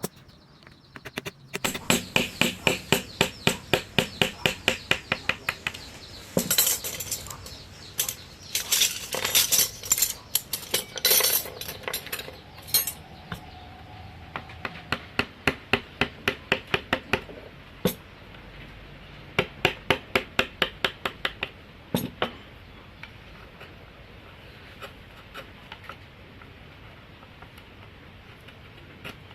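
Mallet tapping a carving chisel into rosewood: runs of sharp, even knocks at about four a second, broken by pauses and looser strikes, thinning to a few light taps in the last part.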